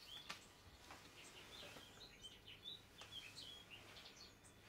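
Near silence with faint bird chirps, many short calls through most of the stretch, and a few soft clicks.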